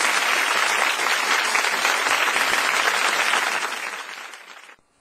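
Audience applause, a dense steady clapping that dies away from about three seconds in and is cut off abruptly near the end.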